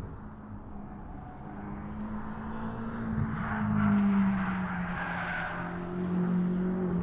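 BMW X6 M's twin-turbo V8 running under steady load. Its note climbs slightly to a peak about four seconds in, then eases off, with a hiss through the middle.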